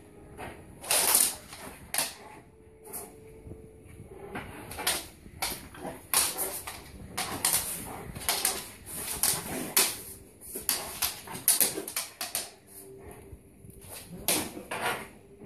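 A big bullmastiff–dogue de bordeaux cross snapping its jaws at soap bubbles: an irregular run of short, sharp snaps, some in quick clusters.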